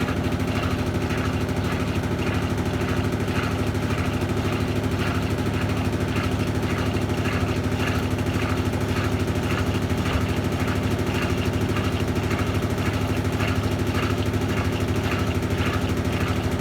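Brastemp Total 7 kg BWL07 top-loading washing machine in its spin cycle: a steady motor hum with a fast, even rattle from the machine vibrating. The noise is typical of a drum running out of balance.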